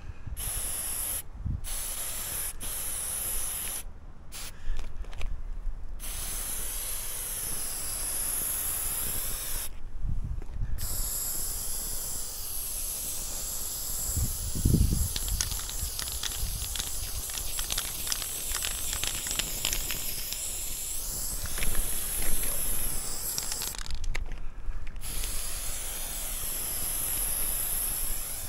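Aerosol spray paint can hissing in repeated sprays, with short breaks where the nozzle is let off, including one about ten seconds in and another near the end. A few dull bumps and fine ticks sound in the middle.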